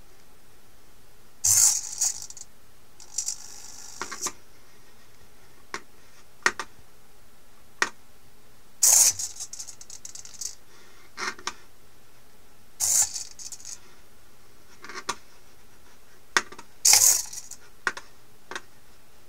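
Hobby servos of a pan-tilt bracket jerking through sudden movements: four loud, high-pitched buzzing bursts of about half a second, roughly four seconds apart, with weaker buzzes and single sharp clicks and rattles between them.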